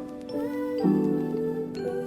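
Background music: a gentle melody of soft pitched notes changing every half second or so.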